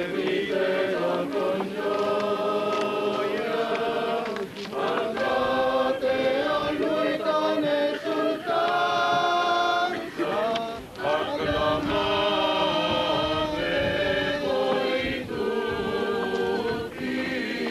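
Small choir singing a hymn, holding sustained notes in several voices, in phrases with short breaks between them.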